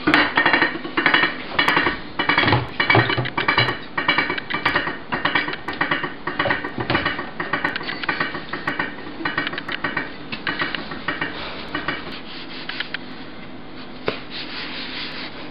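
Dishes being washed by hand in a stainless steel sink: a rapid, irregular clatter and knocking of plates, a drinking glass and a wooden cutting board, with sponge scrubbing, over a faint steady hum. The clatter thins out after about twelve seconds.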